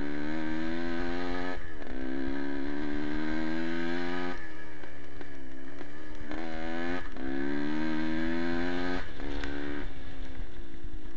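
Vehicle engine accelerating hard in repeated rising runs, each broken off by a sudden drop in pitch at a gear change, with two brief lower stretches where the throttle eases off. A steady low rumble runs underneath.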